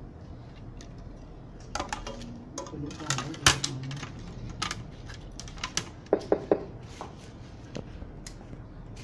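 A car stereo's circuit board being fitted into its sheet-metal chassis: scattered clicks and light metallic knocks as board and case touch. The loudest knock comes about three and a half seconds in, and a quick run of clicks about six seconds in.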